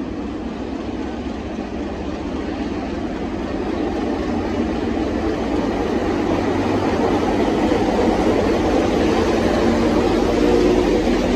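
Diesel-electric locomotive's engine running as it pulls slowly past, growing louder as its hood and radiator grilles come alongside; a steady engine note stands out near the end.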